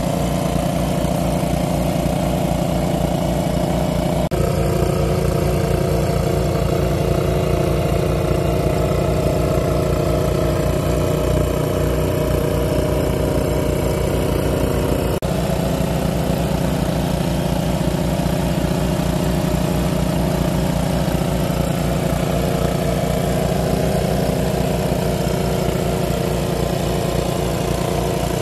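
Small engine driving a large-capacity water pump, running steadily at an even pace.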